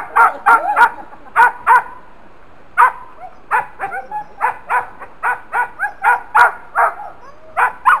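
A dog barking repeatedly in quick runs of two to four barks, with brief pauses between runs.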